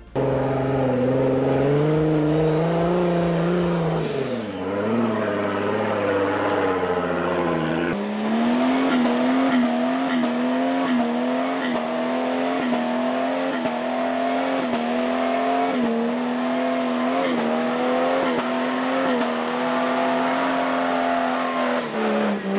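4x4 vehicle engine running and revving, its pitch rising and falling, with abrupt changes about four and eight seconds in. The engine then holds a steadier pitch with small wobbles until near the end. A faint high whine sits over it for the first several seconds.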